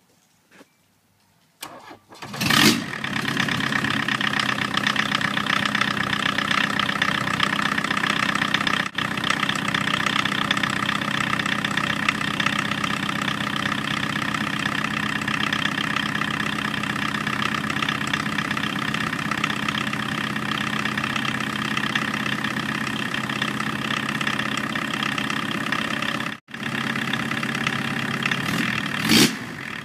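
Volkswagen 1.6-litre naturally aspirated four-cylinder diesel engine, running bare on an engine stand: it fires up about two seconds in and then idles steadily. It cuts out for a moment near the end, then comes back with a quick blip of the throttle.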